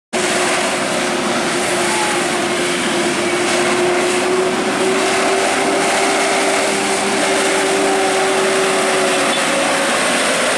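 Road traffic passing, a steady vehicle noise. A faint held tone under it stops near the end.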